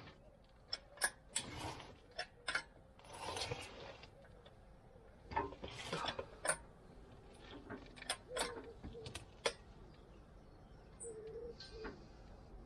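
Scattered clicks and knocks with a few short scraping rattles, from something being handled and adjusted by hand.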